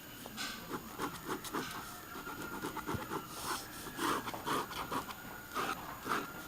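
Drawing strokes scratching across sketch paper: many short, irregular scrapes in quick succession.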